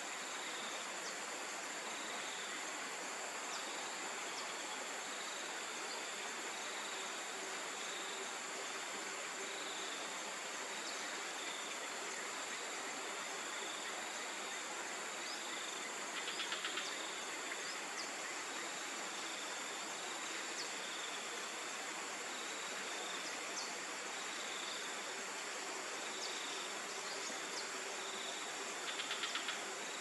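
Rainforest insect chorus: a steady high-pitched drone over a steady hiss, with a soft chirp repeating about once a second. Two brief buzzy rattles come about halfway through and again near the end.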